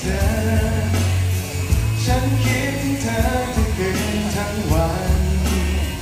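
Live pop ballad with a male singer and band, played through stage loudspeakers with a strong, steady bass line.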